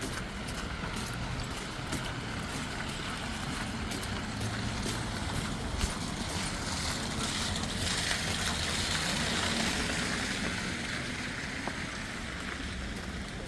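Wet city street noise, with a vehicle's tyres hissing through slush as it passes, swelling about halfway through and then fading.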